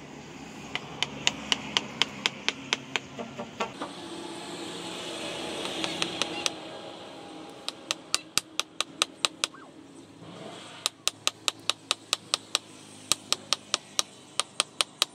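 Quick sharp taps, about three a second, in several runs with short pauses: a knife's tang being knocked home into its wooden handle, the handle resting on a steel post. A swelling rush of noise rises and falls about four to six seconds in.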